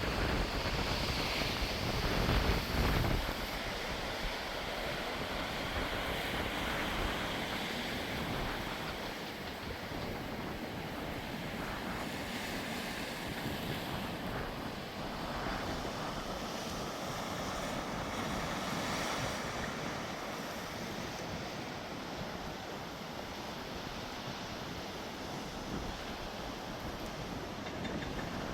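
Sea waves washing on the shore in a steady rush, with wind buffeting the microphone, loudest about two to three seconds in.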